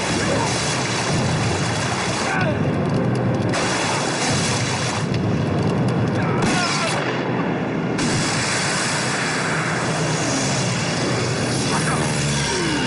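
Dense battle sound effects from a war drama: booms of explosions and gunfire, mixed with dramatic background music.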